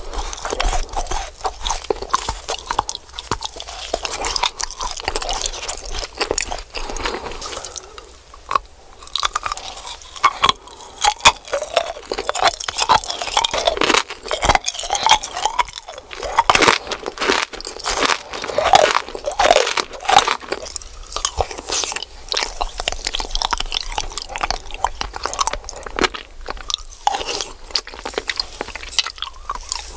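Close-miked eating of pink sweets: crisp crunching bites of hard candy and chewing, a dense run of sharp cracks that thins briefly about a third of the way in.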